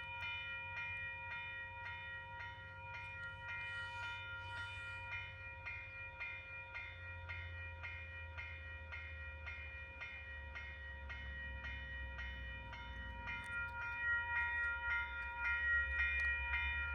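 Level-crossing warning bell ringing in steady, even strokes, a little under two a second. Under it, a low diesel locomotive rumble builds in the second half as the F59PH approaches.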